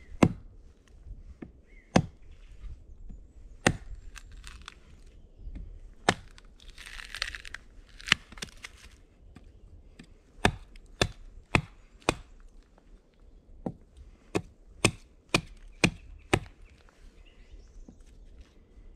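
Hatchet chopping into the side of a short upright log round, cutting slits and notches for a Swedish fire torch. Sharp strikes come at irregular intervals at first, then in a quicker run of about two a second in the second half.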